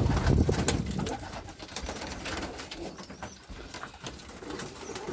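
Homing pigeons cooing, loudest in the first second, with scattered light clicks and knocks.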